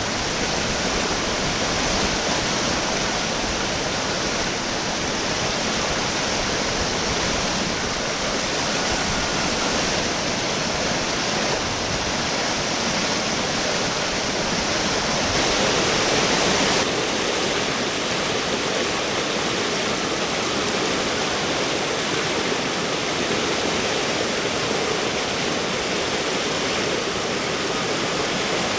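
River water rushing over rock ledges and small falls, a steady hiss, with a brief brighter patch just past the middle and a slight change in tone soon after.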